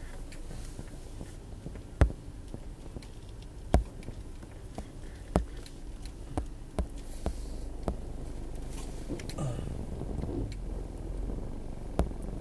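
Low steady rumble of a car's interior while driving slowly, with a handful of sharp, irregularly spaced clicks and knocks, the loudest about two seconds in.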